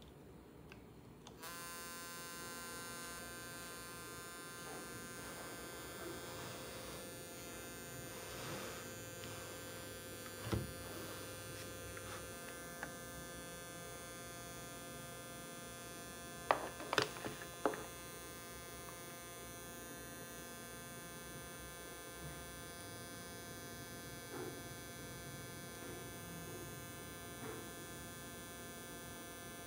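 Homemade SG3525 inverter with a rewound microwave-oven transformer, humming and buzzing steadily from about a second in, as soon as the battery lead is connected. A knock and a quick cluster of sharp clicks a little past the middle come from handling the wiring.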